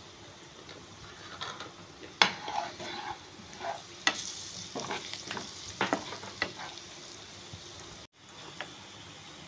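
Chopped onion, capsicum and garlic with spices frying in oil in a nonstick pan, a light steady sizzle, while a spatula stirs them, scraping and knocking against the pan several times in the middle.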